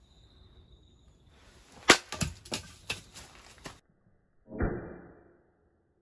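Dry leaves crunching underfoot with several sharp snaps, then one dull thud about four and a half seconds in as a hatchet bites into the top of a firewood log standing on a chopping block, starting a split.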